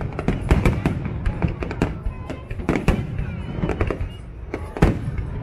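Aerial fireworks going off in a rapid, irregular barrage of booms and crackling bangs, with faint rising and falling whistles in the middle.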